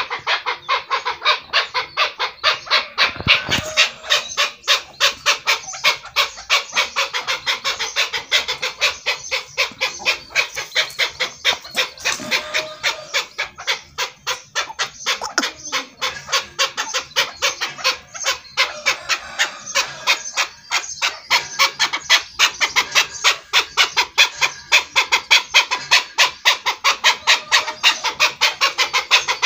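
Chukar partridge calling: a fast, unbroken run of harsh, clucking "chuk" notes, several a second.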